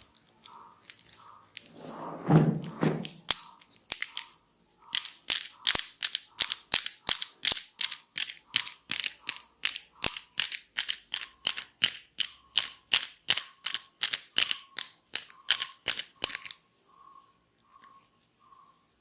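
Hands tapping and slapping rhythmically on a person's head or back in a percussive massage, about three sharp, hollow slaps a second, stopping about three seconds before the end. A short low muffled sound comes about two seconds in.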